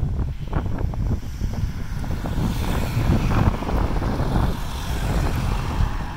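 Wind buffeting the microphone, with road vehicles passing close by; their tyre hiss rises about halfway through and fades again.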